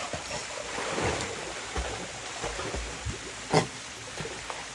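Australian cattle dog swimming and paddling through a creek pool, water rushing and splashing around it in irregular strokes, with one loud sharp sound about three and a half seconds in.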